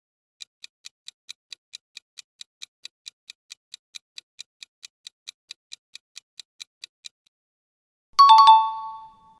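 Quiz countdown timer sound effect: a clock ticking about four to five times a second for about seven seconds, then stopping. About a second later a louder bell-like chime rings and fades, marking the end of the answer time.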